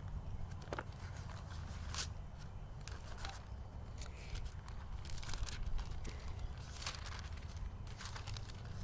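Pages of a Bible being turned and handled while a passage is looked up: scattered soft paper rustles and crinkles, a few every second or two, over a low steady background rumble.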